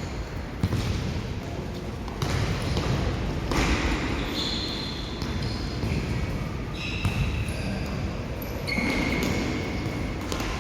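Futsal players' shoes squeaking briefly on the indoor court floor several times, mixed with a few thuds from the ball and feet.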